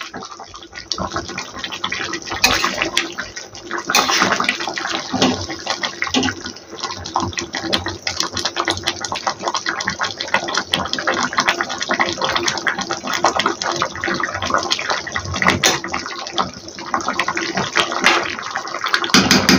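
Fish curry gravy sloshing and bubbling in a metal kadai as a steel spatula stirs it, with many irregular clicks and scrapes of the spatula against the pan.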